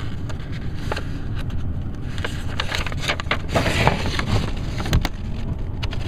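Steady low rumble of a truck cab with the engine idling and the heater running, with paper rustling and crinkling in the second half as a folded document is opened and handled.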